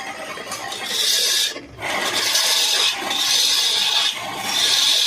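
Wood being turned on a lathe: a cutting tool or abrasive pressed against the spinning workpiece, giving a scraping, rasping hiss in about four strokes of roughly a second each, with short breaks between them.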